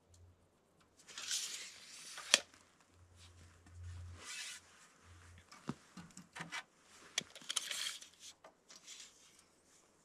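Pencil scratching on a wooden board as it is marked, with rustling handling noise in between and a few sharp clicks and knocks; the loudest is a single sharp click about two seconds in.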